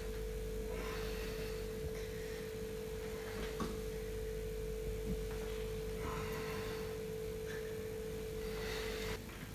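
A steady, pure, mid-high electronic tone that cuts off suddenly near the end, with brief faint rustling noises over it.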